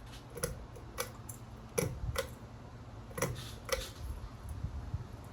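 Light, sharp ticks, about six of them in loose pairs, over the steady low running of a Craftmade patio ceiling fan on low speed.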